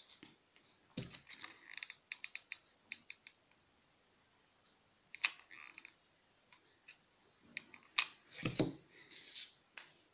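Scattered small clicks and rustling handling noises as a hot glue gun and a metal hair clip are worked by hand. A run of quick ticks comes about one to three seconds in, and two sharper clicks come about five and eight seconds in.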